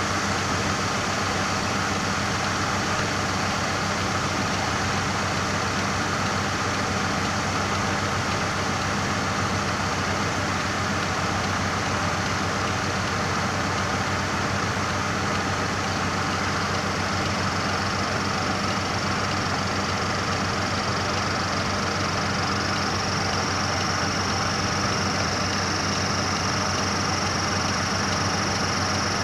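Washing machine spin dryer running, heard from inside the drum: a steady whirring with a constant low motor hum. A faint high whine comes in about two-thirds of the way through and holds.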